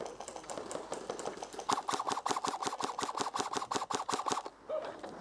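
Airsoft rifle firing: a few single shots, then about a second and a half in a sustained full-auto burst of roughly ten shots a second, lasting nearly three seconds as a rapid, even clatter.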